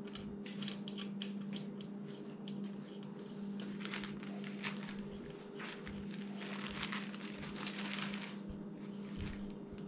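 Small irregular clicks, taps and rustles of hands and a tool screwing the oil drain plug back into a Husqvarna TC50 minibike engine, over a steady low hum.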